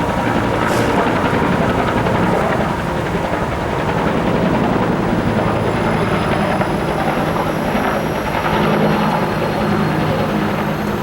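Helicopter flying overhead: a loud, steady rotor and engine drone, its low hum strengthening in the second half.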